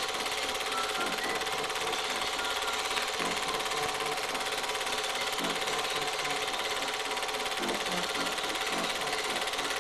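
Super 8 film projector running, its steady mechanical clatter laid over the film's soundtrack with a constant tone through it.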